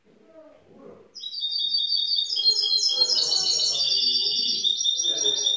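Young goldfinch mule (goldfinch × canary hybrid) singing: a fast, continuous run of high twittering notes that starts about a second in and goes on throughout.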